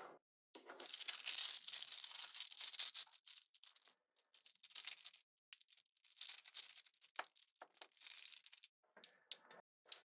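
Small metal magnetic balls rattling and clicking against each other as a clump is worked apart in the fingers. A dense run of rattling comes in the first few seconds, then scattered clicks and snaps.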